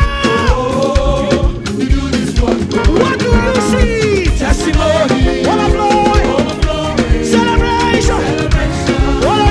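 Live praise band playing upbeat African gospel music, with a steady drum beat under held melodic lines.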